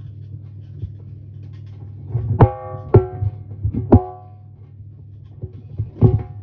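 Background music: sharp pitched note hits over a steady low bass, with the strongest notes coming in a run about two to four seconds in and again near the end.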